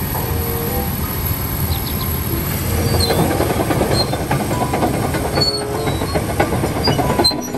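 Caterpillar crawler bulldozer running: a heavy, steady diesel rumble with scattered clanks and knocks.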